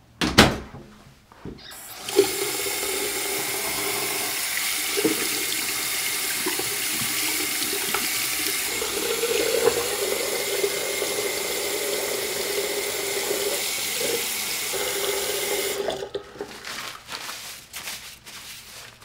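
Bathroom sink tap turned on and running steadily into the basin, then shut off suddenly after about fourteen seconds. A sharp knock comes just before the water starts. Irregular tissue rustling follows once it stops.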